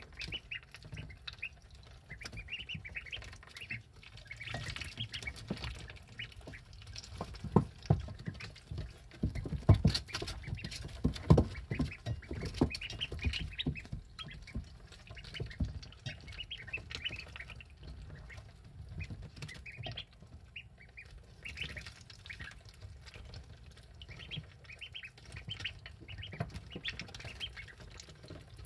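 11-day-old ducklings peeping over and over with short high calls. A few louder knocks come about a third of the way in.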